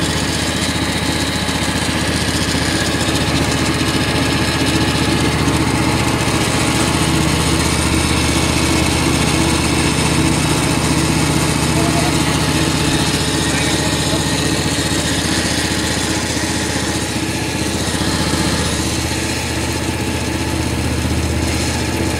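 Small engine running steadily at an even speed, the power unit of a small bitumen sprayer.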